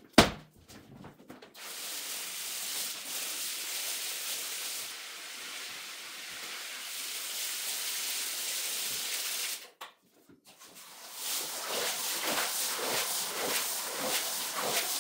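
A sharp thump right at the start, then water from a hose hissing steadily as it sprays onto a rug. After a sudden break, a flat-headed wand is pushed back and forth across the wet rug in quick repeated scraping strokes.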